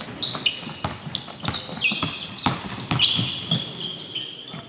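Basketball dribbled on a hardwood gym floor amid sneakers squeaking as players cut: a run of sharp thuds mixed with short high squeals.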